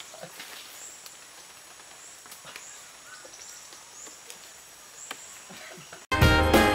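Tropical forest ambience: a steady high insect drone with short high calls repeating about once a second and a few faint knocks. About six seconds in, loud brass swing music cuts in abruptly and drowns it out.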